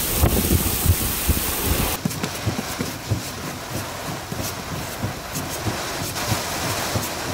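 Heavy rain hissing steadily, with gusts of wind rumbling on the microphone. The wind rumble eases suddenly about two seconds in, and the rain carries on.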